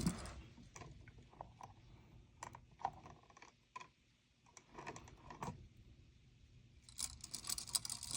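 Faint, scattered small clicks and taps of a hand screwdriver and wire against an electrical receptacle as the neutral wire is fastened to its terminal screw, turning to a denser run of light clicking near the end.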